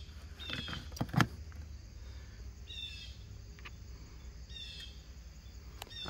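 Sharp clicks, the loudest pair about a second in, from a relay clicking inside the Innovair mini-split's outdoor unit as it first receives power. A bird's short call repeats about every two seconds over a low steady hum.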